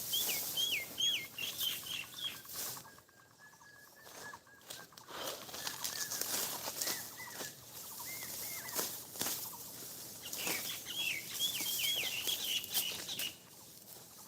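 A songbird sings a quick phrase of sharp, down-slurred whistles, once at the start and again about ten seconds in. Between the phrases come a steady trilled note and a few slurred calls. Throughout there is a dry rustling and crackling, with many short clicks.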